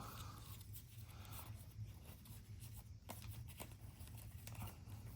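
Trading cards being handled and flipped through, faint soft clicks and light rustling now and then, over a steady low room hum.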